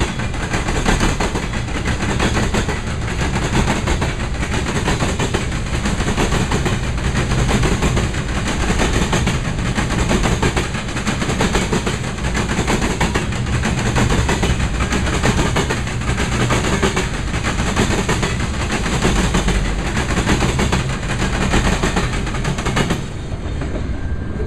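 Freight train of Herzog ballast hopper cars rolling past at close range, with steel wheels clicking over the rail joints. The last car clears near the end and the rolling noise falls away.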